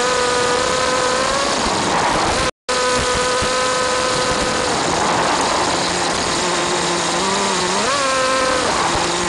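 Small nitro RC car engine running at a high, steady pitch, buried in heavy static hiss from a wireless camera link. The sound cuts out completely for a moment about two and a half seconds in, and the engine revs up and back down near the end.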